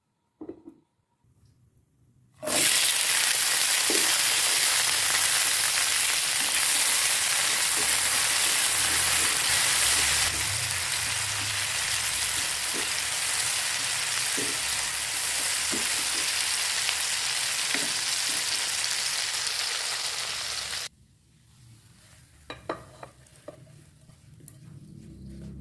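Food frying in hot oil in a pan, a loud steady sizzle with occasional light knocks of stirring. It starts suddenly a couple of seconds in and cuts off suddenly near the end, followed by a few light clicks.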